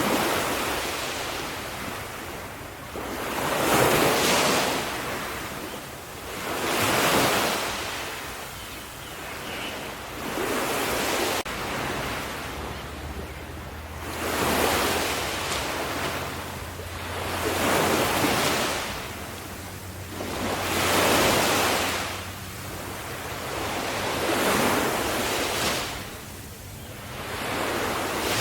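Sea waves breaking on a shore, one surge after another about every three to four seconds, each swelling into a rush of surf and ebbing away.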